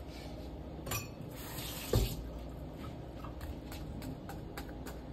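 Kitchen handling sounds as a knife starts cutting slits in a raw turkey in a roasting pan: a short rush of water-like hiss about a second in, a knock near two seconds, then a run of light clicks.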